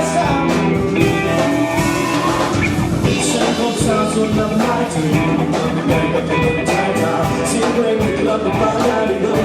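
Rock band music: electric guitars and drums playing a steady beat, with a singing voice.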